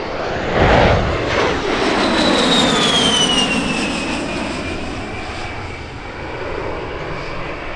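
A-10 Thunderbolt II's twin TF34 turbofan engines on a low pass: a loud rush about a second in, then a high whine that falls in pitch as the jet goes by and moves away.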